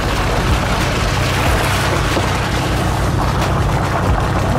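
A 4x4's engine running steadily as it drives along a wet, muddy grass track, mixed with tyre and wind noise on a microphone mounted on the vehicle's side.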